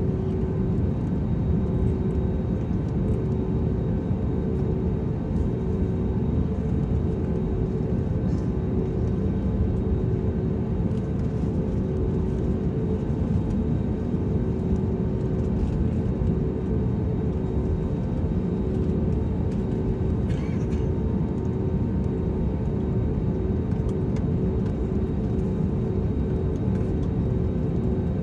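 Cabin noise of an Airbus A320neo taxiing: a steady low rumble from the engines at idle and the rolling of the airliner, with an even, pulsing hum running through it.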